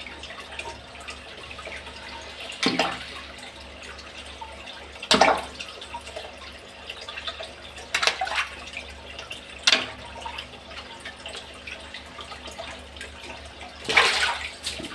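Oscar fish striking aggressively at food held at the water surface, throwing up sudden splashes about five times, over a steady low hum.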